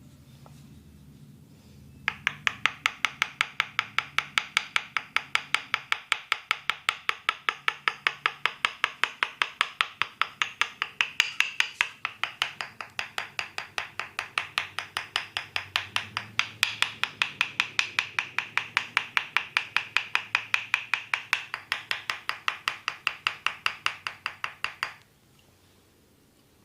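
Rapid percussive massage strikes on the body: a long, even run of sharp taps, about four a second, that starts about two seconds in and stops abruptly shortly before the end.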